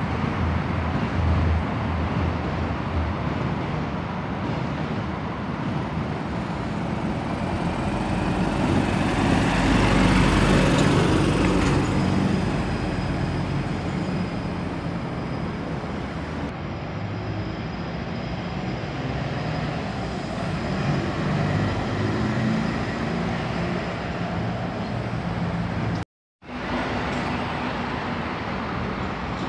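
City bus driving past close by, its engine and tyre noise rising to a peak about ten seconds in and then fading as it pulls away, over steady traffic noise. The sound cuts out for a moment near the end.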